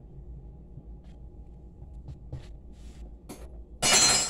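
Light clicks and rustles of containers and lids being handled on a kitchen counter, then a loud, harsh rustling noise lasting about half a second near the end.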